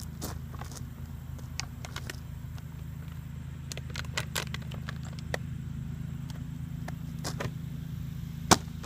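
A plastic water bottle, tossed in a flip, lands with a single sharp smack near the end. Under it runs a steady low hum, with scattered faint clicks.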